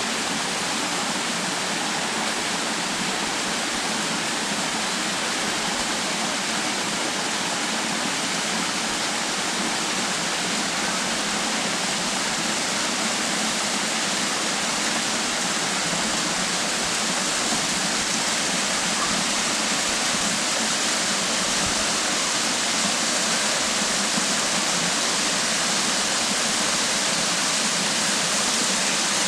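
Waterfall rushing: a steady, loud wash of falling water that cuts off suddenly at the end.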